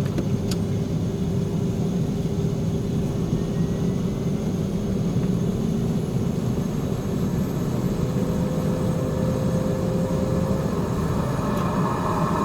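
Cessna 425 Conquest's Pratt & Whitney PT6A turboprops: one engine running with a steady drone while the second spools up during its start, a whine rising slowly in pitch and growing stronger near the end.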